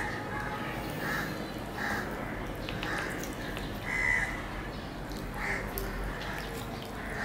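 Crows cawing: about five short calls, spaced irregularly a second or so apart.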